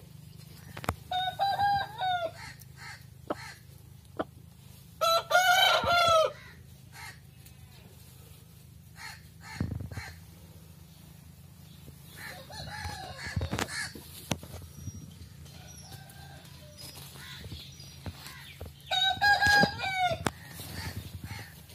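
Aseel rooster crowing four times in short, wavering calls, the loudest about five seconds in, with chickens clucking quietly between the calls.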